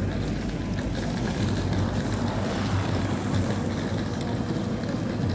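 Wind rumbling on the microphone, steady and low, over the general noise of a busy city square.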